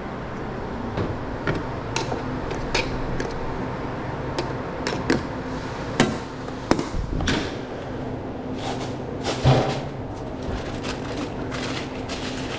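Scattered clicks and knocks of food being handled and packed at a hot dog stand, the loudest about six seconds in and again around nine and a half seconds, over a steady low hum.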